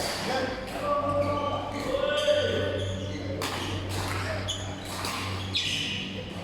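Basketball game in a gym: the ball bouncing and knocking, shoes squeaking on the court, and scattered players' voices echoing in the hall over a steady low hum.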